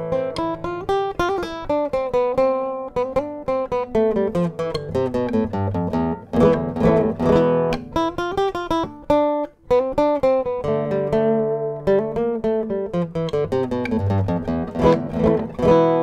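Nylon-string classical guitar played fingerstyle, a steady run of plucked notes and chords, heard in a sound test of a newly fitted Shadow NFX-AC undersaddle pickup. The playing breaks off for a moment about nine and a half seconds in, then carries on.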